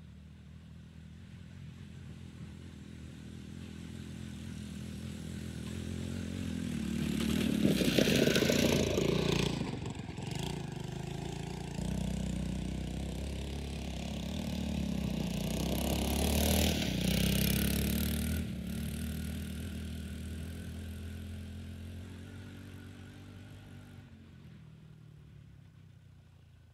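Riding mower powered by a 109 cc single-cylinder four-stroke dirt bike engine, running steadily as it drives across snow. It grows louder as it approaches, is loudest as it passes close twice, around a third of the way in and again just past halfway, then fades as it drives away.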